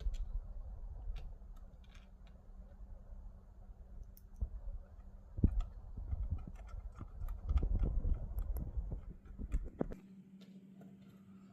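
Scattered light clicks and knocks of small parts and tools being handled, over low rumbling handling noise. About ten seconds in the handling stops and only a steady low hum remains.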